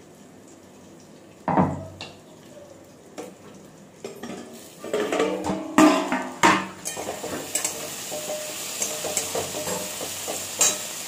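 A stainless-steel plate lid clanks on a steel kadai, once sharply about a second and a half in and then in a run of clatters as it is lifted off. After that, okra and tomato sizzle as they fry, with a steel spatula scraping and tapping against the kadai as they are stirred.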